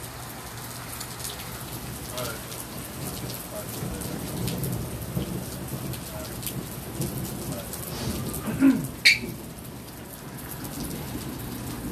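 Steady rain falling during a thunderstorm, with a low rumble of thunder in the middle. Two brief loud noises come close together about nine seconds in.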